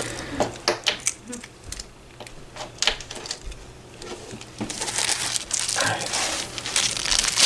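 Light clicks and knocks of items being handled, then, from about halfway through, packaging crinkling and rustling steadily as items are unwrapped.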